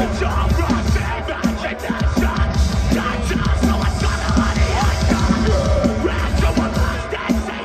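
Metalcore band playing live, with distorted guitars, bass and pounding drums under screamed vocals. Heard from within the crowd.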